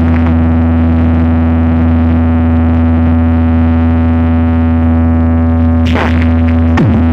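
DJ sound-check music: a held, distorted synthesizer drone with heavy bass, broken near the end by a noisy burst and a falling pitch sweep.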